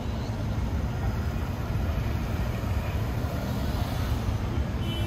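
Steady low rumble of city street traffic, with no distinct event standing out.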